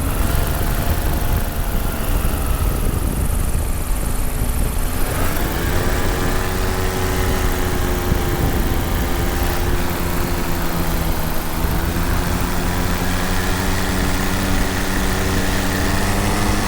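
Paramotor engine and propeller running steadily, with a constant low rumble of wind on the microphone. About five seconds in the throttle opens, and the engine's pitch rises and then holds.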